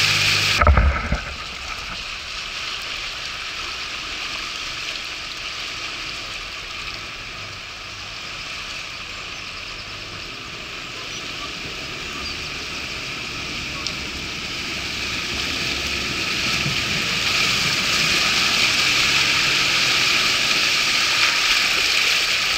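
Rushing water of a flooded ford, a steady hiss that grows louder over the last several seconds as a Toyota Hilux pickup wades through it, pushing a bow wave. A brief thump about a second in.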